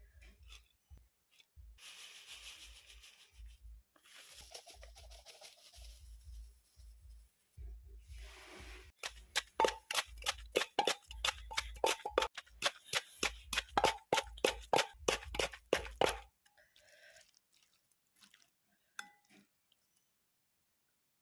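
Pestle pounding green mango in a mortar: a run of sharp, regular thuds about two or three a second, preceded by several seconds of quieter scraping and rustling.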